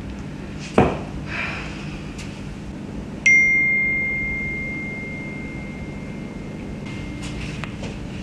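Smartphone text-message notification: a single high chime about three seconds in that rings on and slowly fades away over several seconds. A short thud about a second in, and a few faint clicks near the end.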